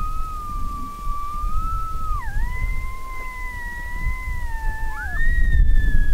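Coyote howling: a long, smooth, drawn-out howl that slides up, holds, dips to a lower held note about two seconds in, then slides up again near the end and falls away.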